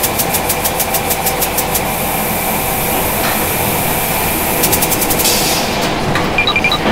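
Cartoon sound effect of a crane truck's engine running while its winch hoists a log. A rapid ratcheting click, about seven a second, runs through the first two seconds and comes back briefly about five seconds in.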